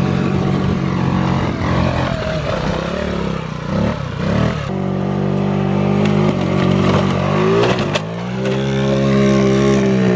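Small two-stroke moped engine revving hard, its pitch climbing and holding high, then dropping away near the end. A single knock sounds about eight seconds in.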